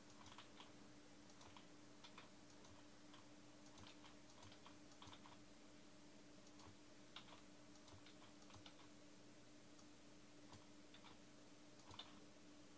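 Faint computer keyboard typing and clicking: scattered, irregular taps over a steady faint hum.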